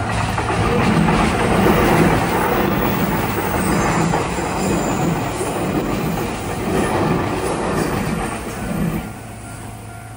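Taiwan Railway electric multiple-unit express train passing over a level crossing, its wheels clattering over the rail joints in a steady rhythm. The train noise drops off suddenly about nine seconds in as the last car clears. The crossing's electronic warning bell is heard again near the end.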